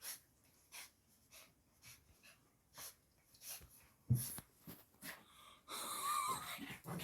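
A dog breathing hard in short, faint puffs, with a single thump about four seconds in.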